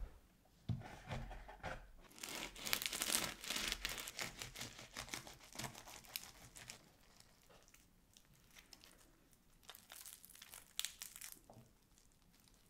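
Crinkling and crackling of something crisp being handled, in two spells: a longer one of about five seconds starting two seconds in, and a shorter one near the end, with a few soft thumps just before the first.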